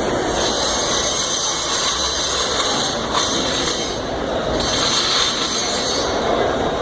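Steady, loud din of a crowded trade-show hall, an even wash of noise with no single sound standing out.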